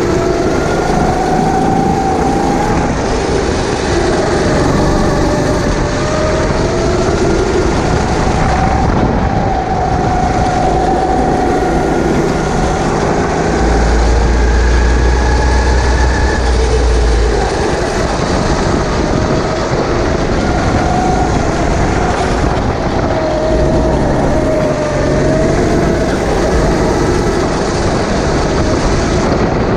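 Sodi racing kart's engine, heard from the driver's seat, its revs rising and falling as it is driven through the corners. There is a stronger low rumble for a few seconds about halfway through.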